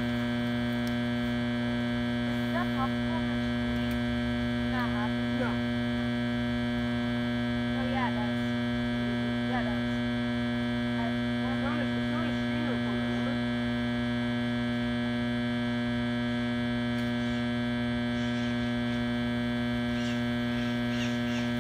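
Steady electrical hum made of a stack of even tones, unchanging throughout and covering the outdoor sound; the uploader blames the bad audio on a broken generator. A few faint short sounds gliding in pitch come through now and then.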